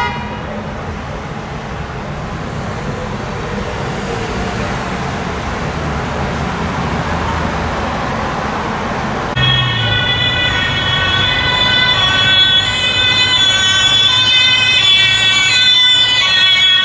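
Street traffic noise, then about nine seconds in a German police car's two-tone siren (Martinshorn) starts, switching back and forth between two pitches and growing louder as it approaches.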